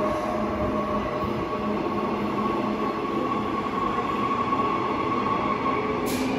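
Transperth B-series electric multiple-unit train running, a steady rumble with several steady whining tones from its drive over it. There is a brief click about six seconds in.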